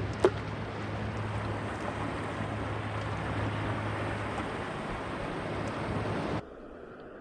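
Jet ski engine idling with a steady low hum under wind and sea noise, with one sharp click just after the start. The sound drops away abruptly about six seconds in.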